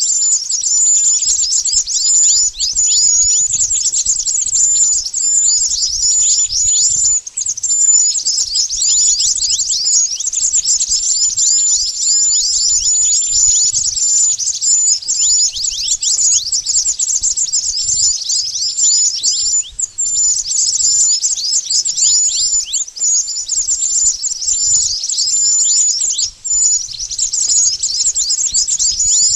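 Lure recording of mantenan bird calls: a dense, non-stop run of rapid, very high-pitched chips and short downward-sweeping notes, several a second, with brief breaks about two-thirds of the way in and again a few seconds later.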